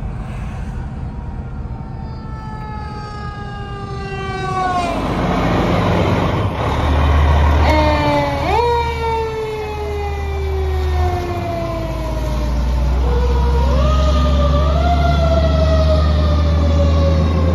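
Fire truck's mechanical Q-type siren winding down slowly in pitch, then quickly wound back up twice, each time coasting down again. A heavy low rumble from the passing truck sets in about five seconds in.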